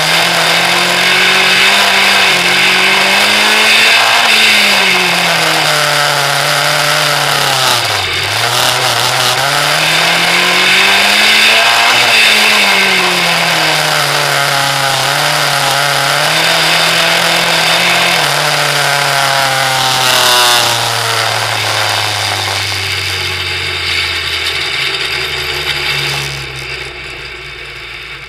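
Onboard engine of an Outlaw stock car racing round an oval, the revs climbing and falling away lap after lap as it accelerates and lifts off, with a sharp dip about eight seconds in. Over the last several seconds the revs fall steadily and the engine gets quieter as the car slows.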